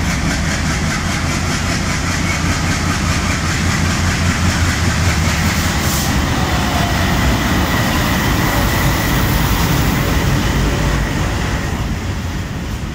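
WDP3A diesel-electric locomotive running under power as it pulls out and passes close by, with a steady high whine over the heavy engine sound. Near the end the passenger coaches roll past and the sound eases slightly.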